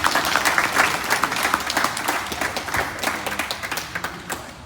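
Small audience applauding with dense hand-clapping that fades out near the end.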